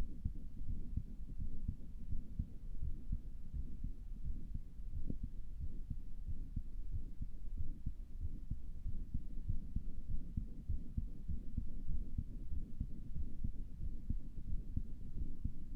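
A person's own heartbeat heard through a stethoscope: low, muffled thuds repeating, which sound odd to the owner and which the owner wonders may be a heart murmur.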